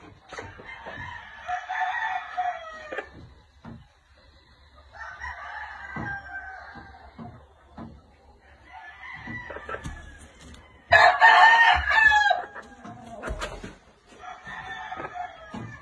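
Gamefowl roosters crowing, about five crows one after another, the loudest about two-thirds of the way through.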